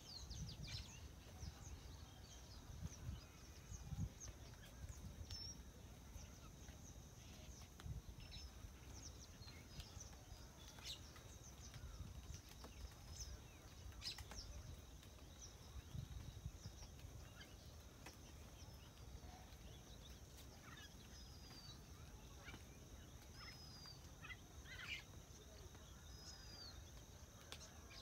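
Birds chirping and calling from the vegetation, with many short high chirps and, in the second half, a short down-slurred whistle repeated every couple of seconds. Under the birds are a faint steady high hiss and a few soft low thumps near the start.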